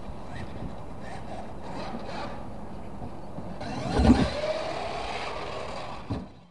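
Radio-controlled monster truck running on a dirt track, its motor whining and tyres scrabbling over the dirt. About four seconds in there is a loud thump as it hits a ramp, then the motor whine rises. A smaller thump comes near the end.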